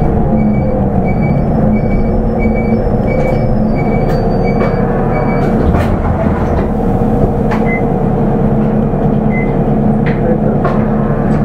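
Nissan Diesel Space Runner RA city bus's diesel engine running steadily. A short electronic beep repeats about twice a second through the first half, then a few clicks follow.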